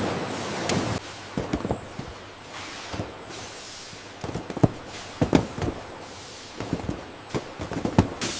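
Irregular light knocks and clicks, in small clusters every second or so, over a faint steady hiss: objects being handled or set down.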